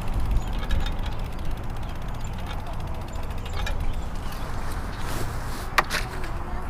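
Road bike coasting: rapid, even ticking of the rear freehub ratchet over wind and road rumble, with a single sharp click near the end.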